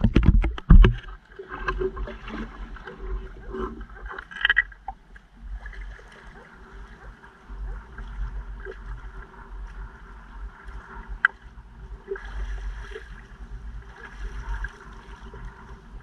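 Sea water sloshing and lapping as people wade through knee-deep water, under a steady low wind rumble on the microphone. A quick cluster of sharp knocks in the first second.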